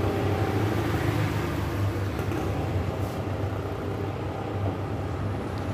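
Steady low mechanical hum with an even background noise.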